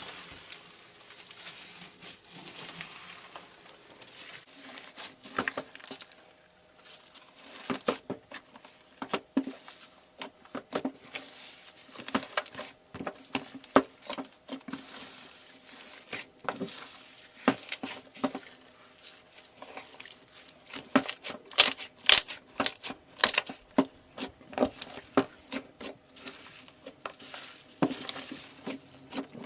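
Hands crushing and squeezing crunchy and soft things: irregular crackling and clicking with squishes, coming thick and fast, loudest in a cluster about three-quarters of the way through.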